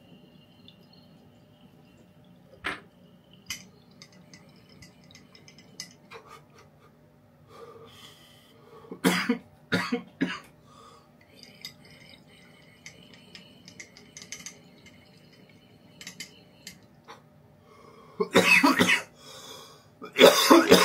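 A man coughing hard in several harsh bursts after inhaling a dab of rosin from a glass dab rig: a cluster of coughs about nine seconds in and another near the end. A couple of light glass clicks come a few seconds in.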